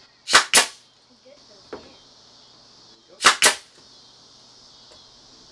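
Brad nailer firing nails into the glued joint of a pine panel frame: two quick pairs of sharp shots about three seconds apart, with a fainter knock between them.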